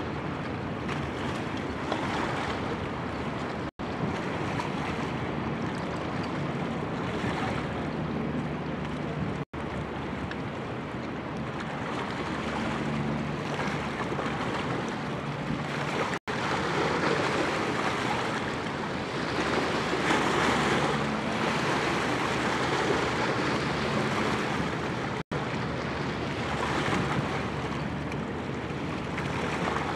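Choppy river water splashing and wind rushing over the microphone, with a faint low, steady hum from a passing inland cargo barge's engine; the wash grows louder for several seconds past the middle. The sound cuts out for an instant four times.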